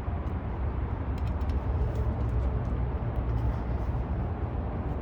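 Steady low background rumble with a few faint light clicks about a second in.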